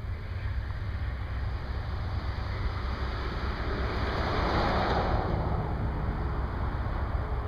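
A road vehicle passing close by: its noise swells to a peak about four to five seconds in and then fades, over a steady low rumble.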